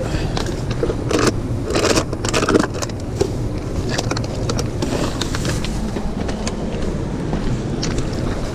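A plastic bag rustling and crinkling as it is handled, with the light clink of the cans inside, loudest between about one and two and a half seconds in, over a steady low rumble.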